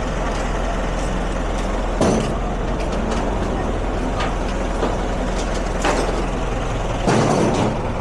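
Steady street noise of road traffic, with a few short knocks along the way.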